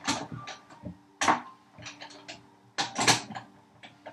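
Hard clatter of hand tools and a wooden box being handled and set down on a workbench: a few sharp knocks with lighter taps between.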